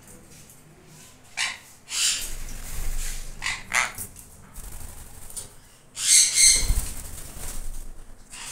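Sun conures flapping and fluttering their wings in several short bursts as they move about and land, the loudest about six seconds in, together with a brief shrill squawk.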